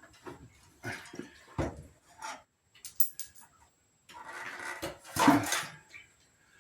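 Several separate sharp knocks, then a longer scraping clatter with a loud clunk about five seconds in.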